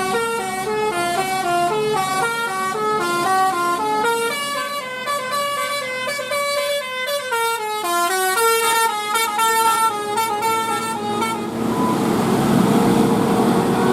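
Basuri 'telolet' musical air horn on a bus playing a quick melody of short stepping notes for about eleven seconds, then giving way to a steady rushing noise near the end.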